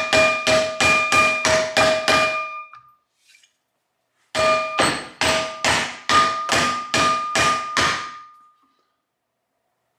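Mallet blows on a strip of sheet aluminium clamped in a bench vise, bending it over the jaws. The blows come about three a second, each one leaving a clear metallic ring from the aluminium. They pause for nearly two seconds near the middle, then a second run follows and stops about eight seconds in.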